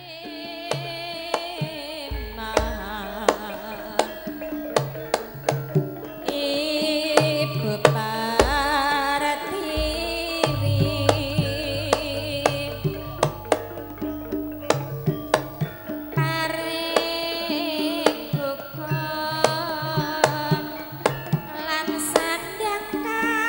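Javanese gamelan music: frequent hand-drum strokes and deep drum thumps over sustained ringing tones, with a woman singing in a wavering, ornamented voice.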